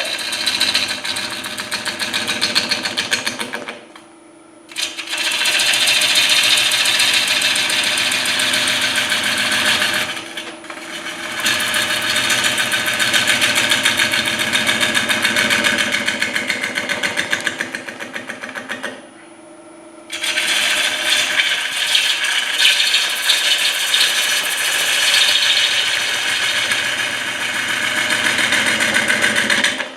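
Bowl gouge cutting the outside of a spinning, soaking-wet hard maple bowl blank on a wood lathe: a loud scraping, shaving sound with a rapid, even ticking running through it. The cut stops briefly about four seconds in and again about nineteen seconds in, leaving only the lathe's faint steady running sound, then resumes.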